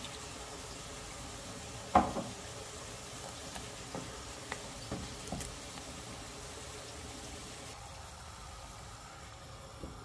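Pan of noodles, vegetables and duck sizzling steadily with water just added. A sharp knock comes about two seconds in, lighter taps of a wooden spatula follow, and a lid is set down on the pan at the end.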